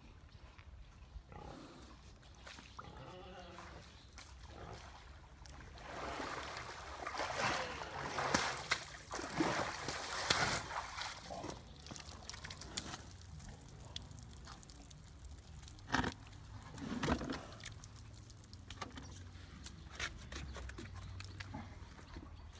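Water buffalo in a mud wallow grunting, with wet mud sloshing and splashing as it moves. There is a wavering grunt a couple of seconds in, then a louder stretch of sloshing and two sharp sounds a little past the middle.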